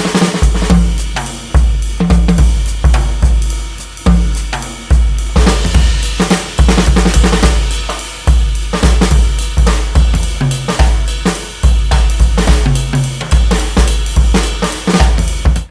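Background music with a driving drum-kit beat, snare, cymbals and hi-hat over a heavy bass line.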